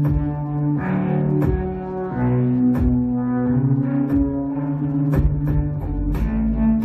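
Live keyboard music: sustained low bass notes and chords that change every second or so, over a sparse ticking beat that grows busier, with a fuller low end, about five seconds in.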